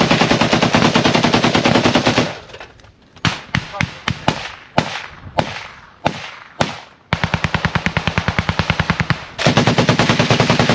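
Machine gun fired in long automatic bursts close by, about ten rounds a second, at the start and again from about seven seconds in. Between the bursts come scattered single shots and short bursts: return fire from the other side.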